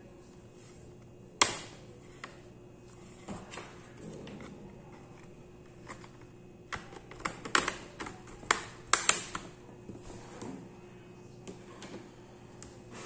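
Irregular sharp clicks and taps from the ASUS X420F laptop's metal bottom case being gripped, shifted and knocked on the work surface. The loudest is a single knock about a second and a half in, and a quick cluster of clicks comes between about seven and nine seconds.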